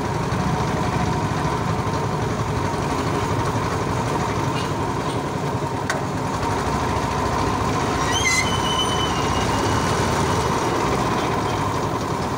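Steady rattling rumble of a pedal trisikad, a bicycle with a sidecar, rolling over a concrete street: the frame and tyres clattering with the road. A brief high-pitched chirp comes about eight seconds in.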